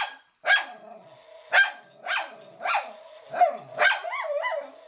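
Miniature schnauzer barking sharply at an animated skeleton dog toy, some seven barks in quick succession, with a steady whine held between them.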